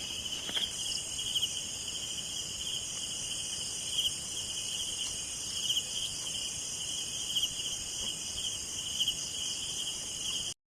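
Chorus of crickets and other insects: a steady high trill with pulsing chirps that recur every second or so. It cuts off suddenly near the end.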